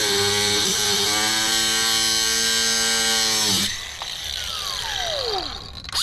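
Angle grinder with a cut-off wheel slicing through a steel garage door torsion spring: a loud, steady motor whine with a hiss of metal cutting. About three and a half seconds in, the trigger is released and the wheel spins down in a falling whine.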